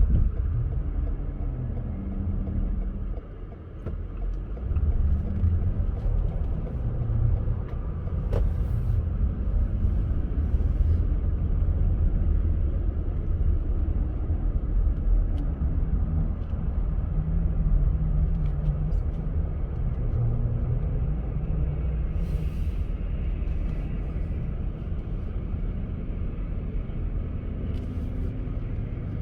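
Car driving on a snowy road: a steady low rumble of engine and tyres, which dips briefly a few seconds in.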